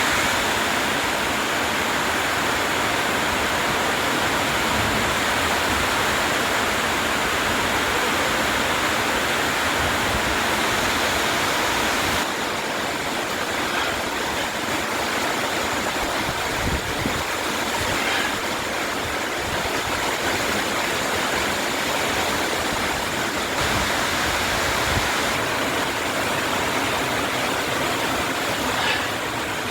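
Heavy rain falling steadily, an even hiss that drops slightly in level about twelve seconds in.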